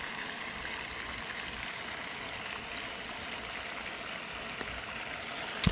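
Steady, even outdoor background hiss, with one sharp click near the end.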